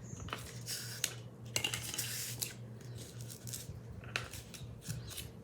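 Small metal snap-button charms being handled, with scattered light clicks and clinks of metal against metal and a little rustling.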